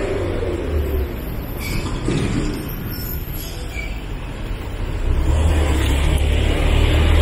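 Road traffic: a steady low rumble of passing vehicles that grows louder about five seconds in.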